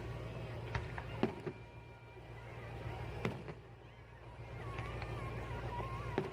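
Fireworks going off at a distance: several sharp bangs, two about a second in, one near the middle and one near the end, over a steady low rumble.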